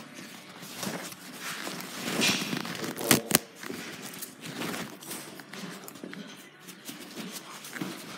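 Close rustling and rubbing handling noise, with two sharp knocks a fraction of a second apart about three seconds in.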